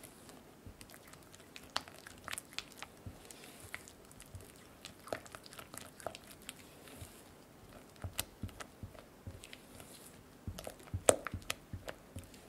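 Silicone spatula stirring an egg yolk into creamed butter, sugar and cocoa in a glass bowl: soft, sticky squishing and scraping with irregular light clicks of the spatula against the glass, one sharper click near the end.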